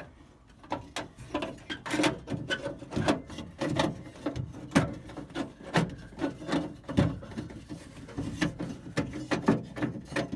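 Irregular metal clicks, knocks and scraping as the unbolted window rail is worked out from inside a 1956 Ford F100 truck door.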